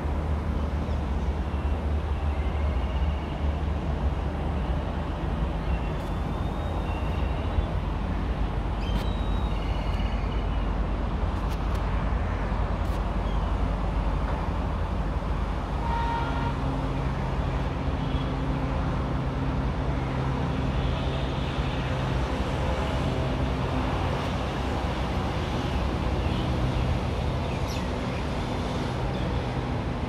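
Steady low outdoor rumble with a faint hum, like distant engines or traffic, with faint high bird chirps scattered through it, most of them in the first third.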